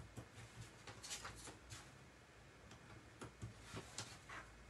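Faint, scattered ticks and scratches of thin cardstock being handled and trimmed with a craft knife, as small die-cut leaves are freed from their sheet.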